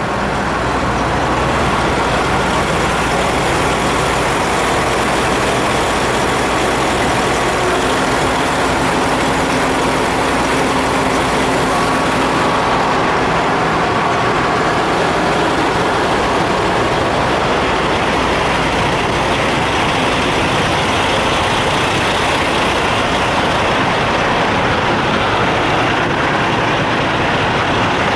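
Idling diesel semi trucks: a loud, steady engine drone that stays even throughout.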